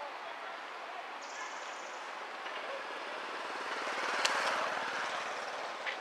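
A motor engine passing by, with a fast even pulse, growing louder to a peak about four and a half seconds in and then fading, over a steady outdoor background. A sharp click sounds near the peak.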